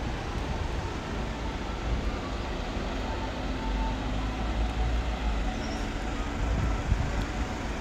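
Outdoor street ambience: a steady low rumble and hiss, with no single sound standing out.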